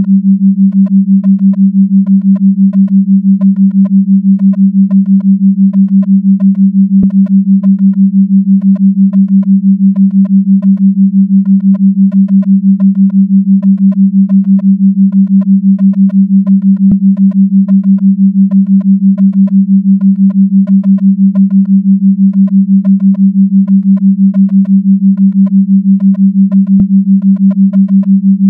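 Steady electronic sine tone near 200 Hz, pulsing in loudness about six times a second: a 6 Hz beat tone of the kind used for brainwave entrainment. A faint click comes about every ten seconds.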